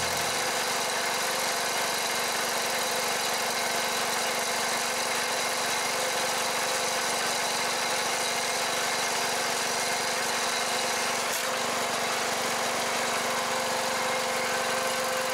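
Small gasoline engine of a log splitter running steadily.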